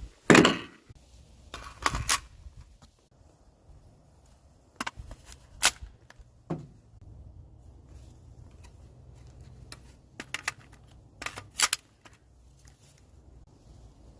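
Sharp metallic clicks and clacks from an AR pistol and its magazine being handled, spaced irregularly: one loud clack right at the start, then single clicks and quick double and triple clicks later on.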